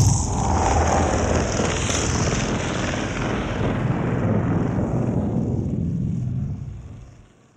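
Logo-intro sound effect: a deep rumbling roar with hiss over it. It is loudest at its sudden start, holds steady, then fades away over the last second.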